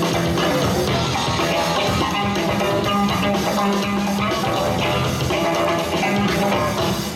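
Music with drums and guitar and a steady beat.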